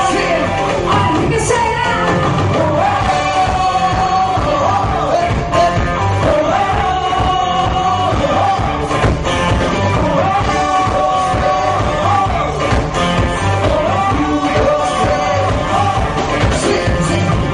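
Recorded pop song playing, with a sung melody over a steady beat.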